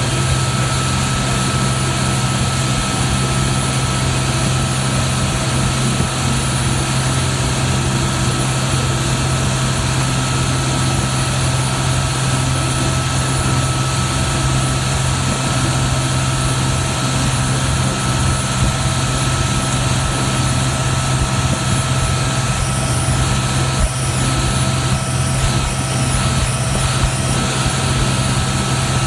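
Dive boat's engines running steadily at speed, a constant low drone, over the rush of water and wind.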